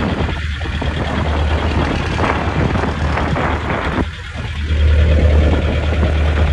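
Wind buffeting the phone's microphone on a small open boat, over the low, steady running of the boat's engine.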